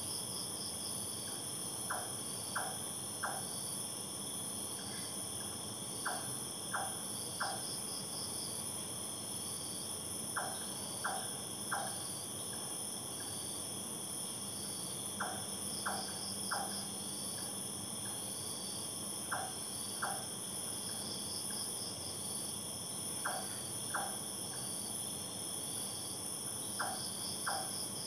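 Night insect chorus of crickets and other insects: several steady high-pitched trills at different pitches, with a shorter trill repeating every few seconds. Over it come short sharp clicks in groups of two or three, about every four seconds.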